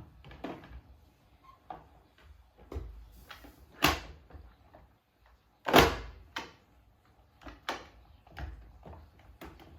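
Irregular plastic knocks and clicks from handling and fitting parts of an iLife Shinebot W400 robot floor mop, with two louder knocks about four and six seconds in.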